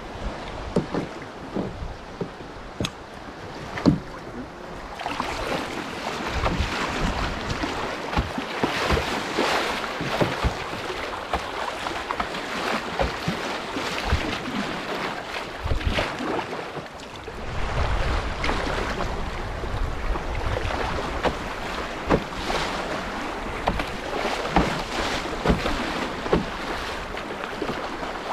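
Fast, high river water rushing and splashing against a canoe's hull while it is paddled downstream, with wind on the microphone. The water sound grows fuller about five seconds in, and a low wind rumble rises for a couple of seconds near the middle.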